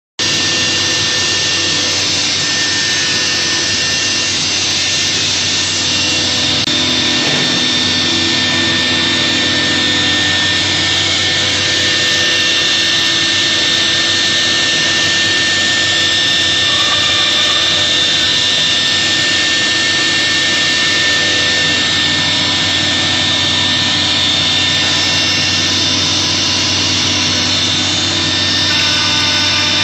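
4-axis CNC router's high-speed spindle running with a steady high whine while its bit cuts into a curved wooden panel.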